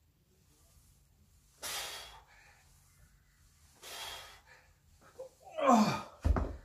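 A man breathing hard during single-arm dumbbell thrusters: two forceful exhalations about two seconds apart, then a louder groan that falls in pitch. Just before the end comes a heavy thud as the 22 kg dumbbell is set down on the rubber gym floor.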